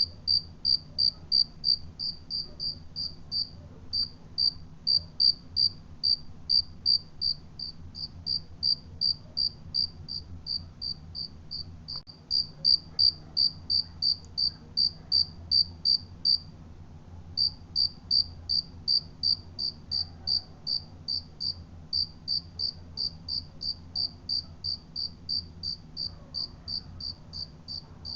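A cricket chirping in an even rhythm of short, high chirps, about three a second, which stops for about a second midway before carrying on.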